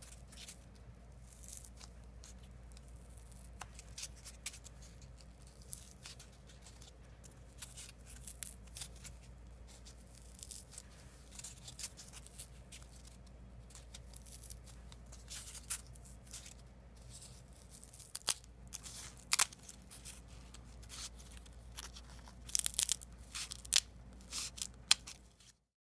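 Starch packing peanuts being torn, pinched and squeezed by hand, giving irregular soft crackly tearing noises over a steady low hum. Near the end come a few louder, sharper snips as a small cutting tool cuts into a peanut.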